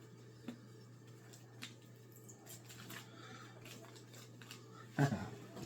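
Light clicks and rustles of packaging and small items being handled, then a soft thud about five seconds in, as of something set down.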